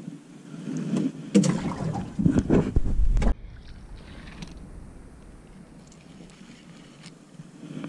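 Loud rustling and knocking of hands and fishing gear right at the microphone, with a deep rumble, cutting off suddenly about three seconds in; then much quieter, with faint splashes of a hooked fish at the surface beside the boat.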